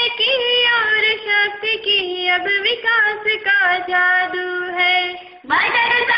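A female voice singing a Hindi poem set to a tune, in long held notes that glide from pitch to pitch. The line breaks off briefly about five seconds in and a new phrase begins.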